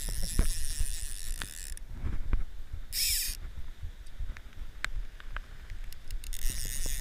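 A fly reel's clicker ratcheting in three bursts as line is run on or off the reel: a long one at the start, a short one about three seconds in, and another near the end. Scattered light clicks and a steady low rumble run underneath.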